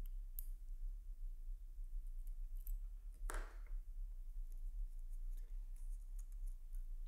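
Faint, scattered small clicks and scrapes of a watch mainspring barrel being handled between the fingers as its mainspring is worked out, with one brief louder rustle about three seconds in, over a low steady electrical hum.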